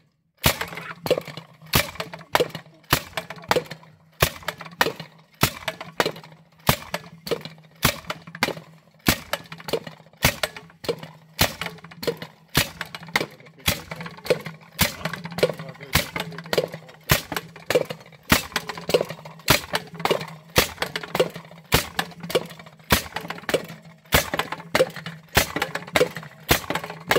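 Explosion rammer (a hand-guided internal-combustion tamper) running steadily, each firing stroke giving a sharp bang and clank as the rammer jumps and drops, about one and a half a second.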